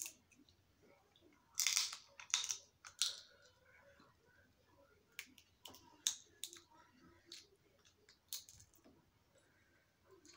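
Snow crab shells cracking and snapping as the legs are broken open and picked by hand. A cluster of about three loud cracks comes two to three seconds in, followed by scattered sharp clicks.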